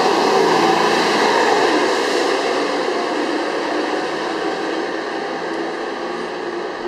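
A New Flyer XD40 Xcelsior city bus, with a Cummins ISL9 diesel and an Allison automatic transmission, pulling away. Its engine and drivetrain run steadily and grow gradually quieter as it drives off.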